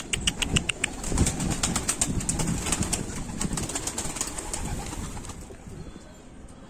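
Domestic pigeons cooing in a loft, with a run of quick clicks and rustles during the first three seconds.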